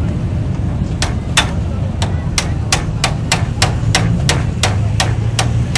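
Hammer striking metal in a steady rhythm, about three ringing blows a second, starting about a second in. A low steady hum runs underneath.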